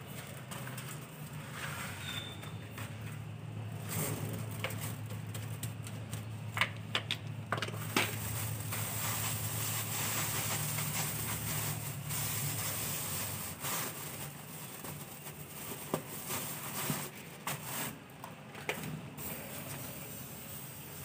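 Cleaning noises: a hand brush and dustpan scraping and knocking on a concrete floor and a plastic bag rustling, with scattered sharp clicks. Under them runs a steady low hum that stops a little past the middle.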